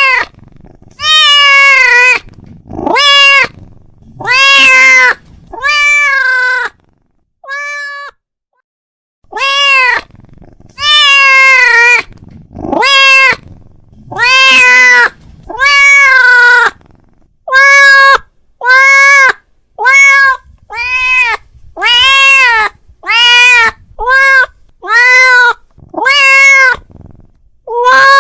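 A cat meowing loudly over and over, about twenty drawn-out calls that each rise and fall in pitch, roughly one a second and coming faster in the second half: a cat calling out to another cat.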